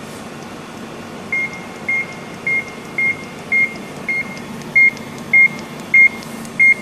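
Handheld barcode scanner beeping ten times, short identical high beeps about one every 0.6 s, each beep confirming a good read of a laser-marked barcode. A steady low hum runs underneath.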